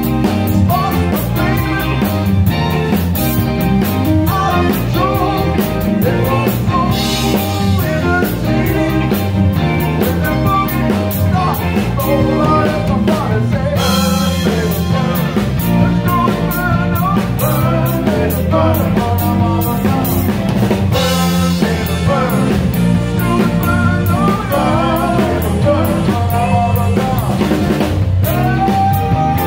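Live rock band playing loud, with a drum kit keeping a steady beat and a singer carrying the melody.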